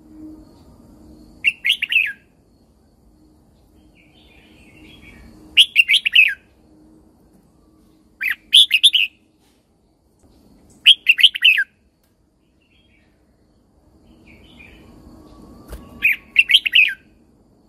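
Red-whiskered bulbul singing: five short, quick warbled phrases a few seconds apart, each under a second long, over a faint low hum.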